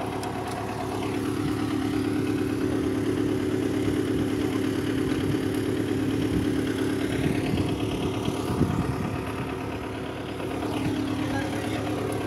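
Tractor engine idling steadily, with a few sharp knocks and some clatter a little past the middle.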